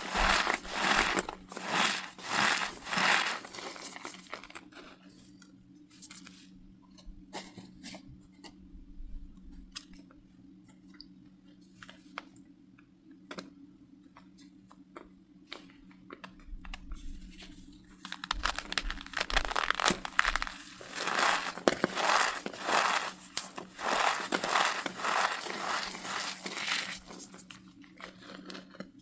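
Compacted cornstarch being crushed by hand: rapid runs of crisp, squeaky crunches at the start and again for several seconds near the end, with only a few small scattered crackles in a quieter stretch between.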